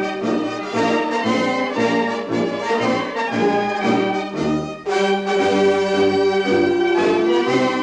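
Instrumental music led by brass playing a melody of held notes, with a brief break and a new phrase about five seconds in.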